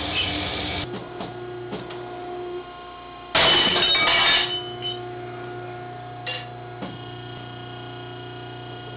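A hydraulic ironworker runs with a steady hum while its shear cuts steel flat bar into small tabs. A loud, rough cut lasts about a second just past a third of the way in, and a sharp metallic clink follows a couple of seconds later.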